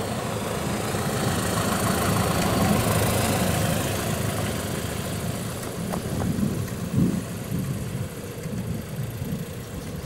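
Piper Cherokee light aircraft's piston engine and propeller running at low power while taxiing. The drone swells to its loudest a few seconds in and then eases off, with a single knock about two-thirds of the way through.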